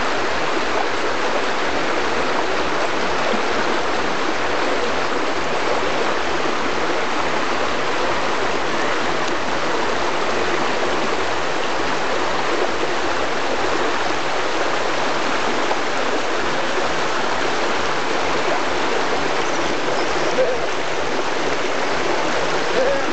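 Shallow river rushing over rocks and a low rock ledge in small rapids, a steady rush of water.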